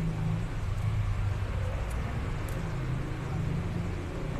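Steady low rumble of an engine or motor running in the background, with a couple of faint light clicks about two seconds in as piston rings are handled on a piston.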